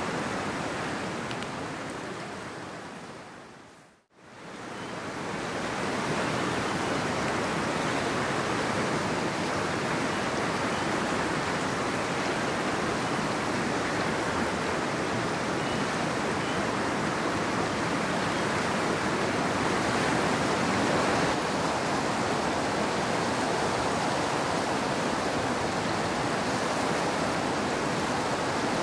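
Fast mountain river rushing steadily over rocks. The sound fades out to silence about four seconds in, then fades back up to the same steady rush.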